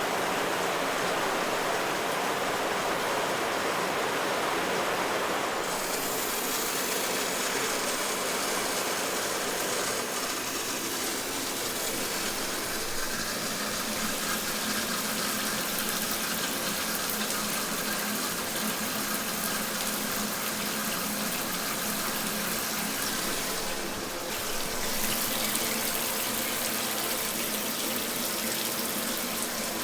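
Shower running: a steady rush of spraying water. Its tone shifts about five or six seconds in, and again after a brief dip around 24 seconds in.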